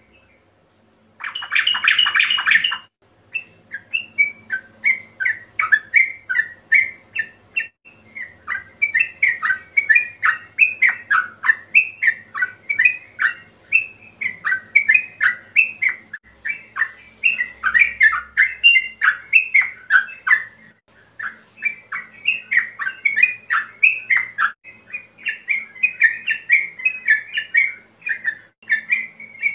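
Yellow-vented bulbul singing a fast, almost unbroken string of short notes, after a loud harsh burst about a second in. This is the rapid 'ropel' song of a male calling out to rivals, used as a lure to set other bulbuls singing.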